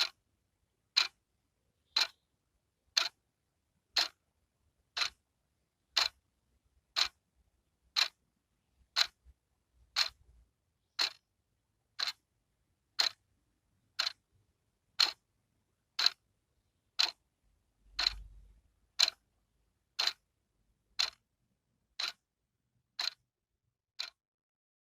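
Wall clock's second hand ticking, one sharp tick every second.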